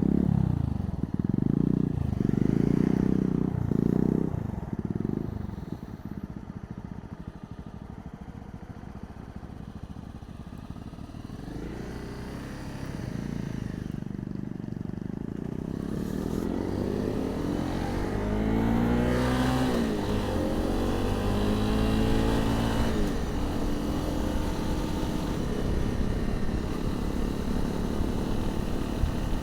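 250cc single-cylinder motorcycle engine heard from inside a crash helmet: a few short bursts of throttle, then several seconds of quieter low running, then pulling away with the revs rising and falling through gear changes past the halfway mark.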